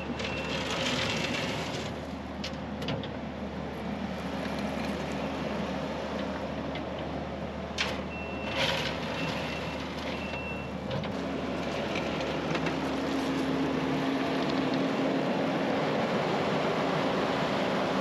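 Kubota SVL65-2 compact track loader's diesel engine running steadily as it works gravel, with a few short high beeps from its backup alarm in the middle while it reverses and scattered clicks of gravel. The engine gets a little louder and higher after about eleven seconds as the machine turns and drives off.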